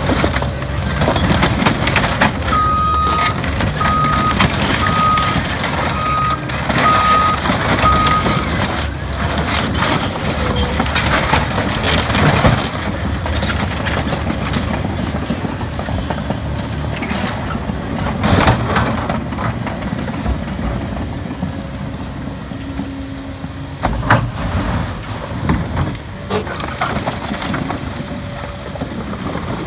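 Heavy construction machinery's diesel engine working steadily while demolishing a car, with several sharp crunching impacts. Early on, a backup alarm beeps six times, about a second apart.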